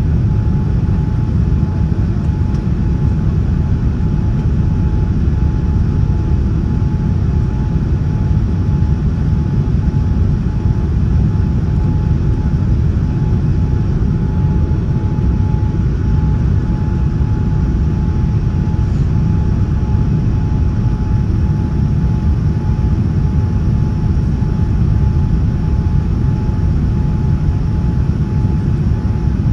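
Boeing 787-9 airliner cabin noise in flight: a steady rumble of engines and airflow, with a faint steady whine just under 1 kHz.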